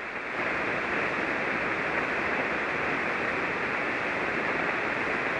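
Steady static hiss from a ham radio receiver on 40-metre single sideband, heard between transmissions while no station is talking.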